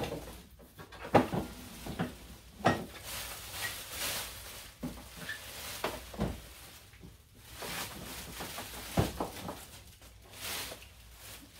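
Clear plastic packaging bag crinkling and rustling as it is pulled off and balled up, mixed with several knocks and bumps from handling the boxed hose-reel unit, the loudest about a second in and another near nine seconds.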